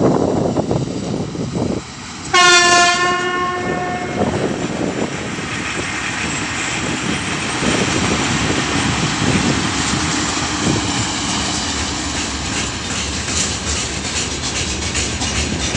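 3ES5K 'Ermak' electric locomotive sounding one loud horn blast about two seconds in, a greeting from the crew, as it passes with a freight train under braking. After the blast, the locomotive and the long string of open freight wagons rumble past, with wheels clicking over the rail joints more and more often near the end.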